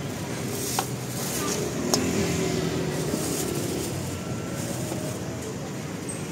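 Steady street ambience with traffic running, and a couple of light clicks about a second and two seconds in.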